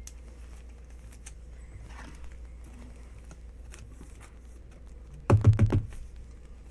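Light clicking and rustling of a trading card and its plastic sleeve being handled on a tabletop, then a brief cluster of loud knocks about five seconds in.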